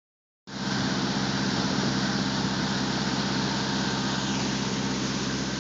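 Motorboat engine running steadily while the boat is underway, under a constant rush of water from the wake and wind. It starts about half a second in.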